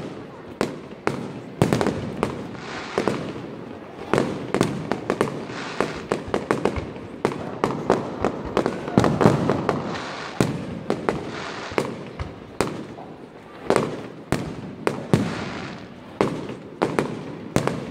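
Aerial fireworks display: an irregular barrage of shell bursts, several bangs a second, over a continuous rumble.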